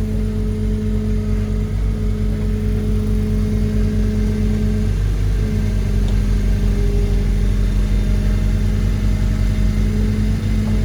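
Heavy construction machinery running steadily with a constant droning hum, with a brief dip in the tone about halfway through.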